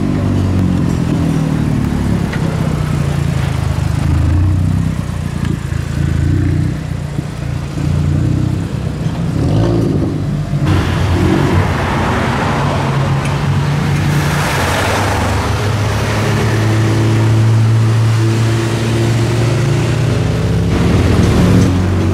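KTM X-Bow's turbocharged four-cylinder engine running at low revs in slow town traffic, a steady low note whose revs rise and fall a little near the end.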